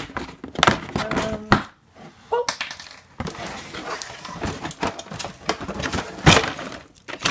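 Cardboard packaging and a plastic toy being handled: irregular knocks, taps and scrapes as a taped cardboard insert is pulled away and a plastic farm playset is lifted out of its box, with the loudest knock about six seconds in.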